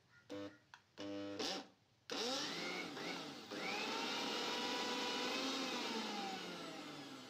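Small stainless-steel mixer-grinder jar grinding peanut paste with cocoa powder and sugar. The motor is pulsed briefly twice, then switched on: its whine rises as it spins up, runs steadily for a few seconds, and falls as it winds down near the end.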